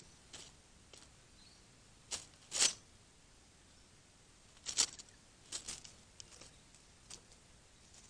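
A scattering of short rustles and crackles of dry leaves and twigs, loudest about two and a half seconds and five seconds in.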